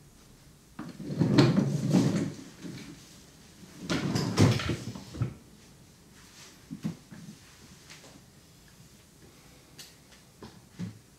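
Two short bursts of rubbing and rustling, about a second in and again about four seconds in, then a few light clicks.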